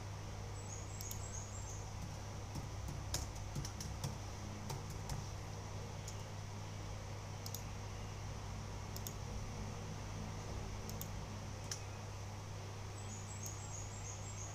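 Scattered light clicks and taps over a steady low hum. A short run of about five high chirps comes about a second in and again near the end.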